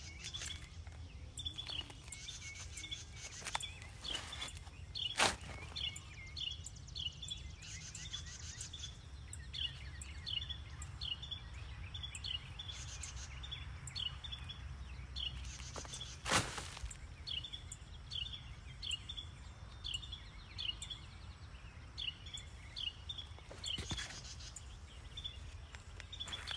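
A bird chirping over and over, short high calls about one to two a second, over a low steady rumble. Three sharp clicks stand out among the calls.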